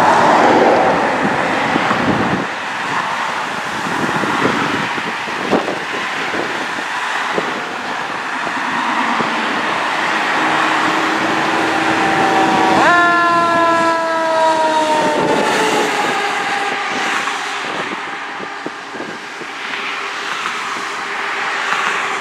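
Emergency vehicle going by with engine and road noise. About thirteen seconds in a horn sounds, jumping up sharply in pitch and then sliding down over about three seconds as it passes.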